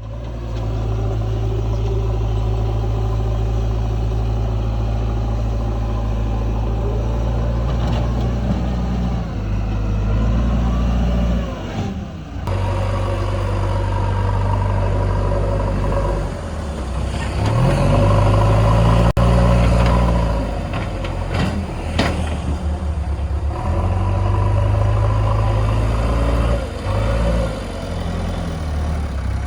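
Diesel engine of a JCB 3DX backhoe loader running under load, its revs rising and falling as it works, with a louder, higher-revving stretch around two-thirds of the way through and a few sharp clanks.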